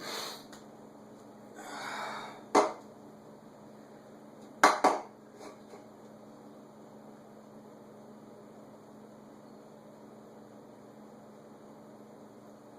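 Quiet small room with a steady low electrical hum. Two soft breathy rustles come near the start, then a sharp knock about two and a half seconds in and a quick double knock about two seconds later.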